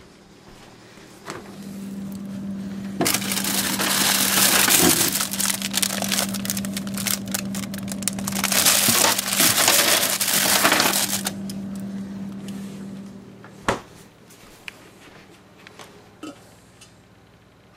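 Plastic snack-cake wrappers crinkling and rustling as they are handled, loudest through the middle. A steady low hum runs underneath and stops shortly before a single sharp knock.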